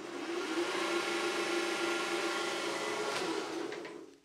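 Toro eFlex electric reel mower's reel and groomer unit running with the groomer set to reverse: a steady whir with a gear whine, spinning up at the start and winding down near the end. The owner finds it does not sound bad, just a groomer that runs somewhat loud.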